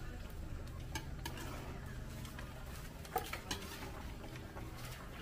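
Stirring and light clinks of utensils against a cooking pot, with a sharp knock about three seconds in, over a low steady hum.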